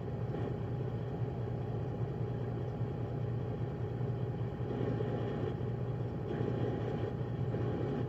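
Straight-piped Freightliner Coronado semi-truck's diesel engine idling steadily: a low rumble with a faint steady whine above it.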